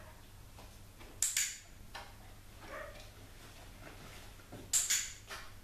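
Two sharp double clicks, about a second in and near the end, typical of a dog-training clicker marking the puppy's behaviour, with a few fainter knocks and clinks between.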